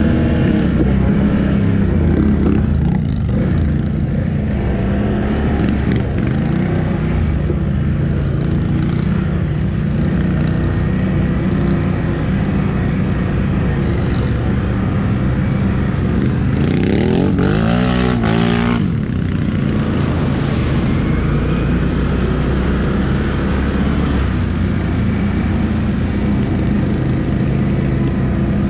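ATV engine running steadily under load, its revs climbing sharply once about two-thirds of the way through.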